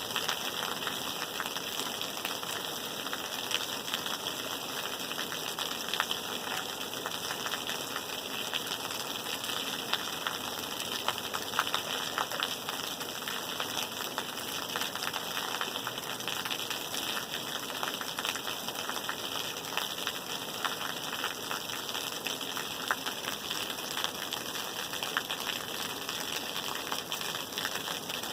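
Steady rain: a dense, even patter of drops with sharper individual drop hits scattered throughout.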